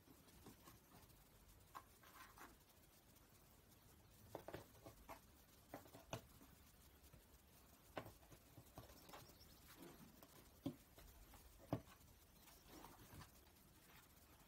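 Faint, irregular scratching, rustling and tapping of a cat pawing and clawing at a cardboard box on a wooden parquet floor.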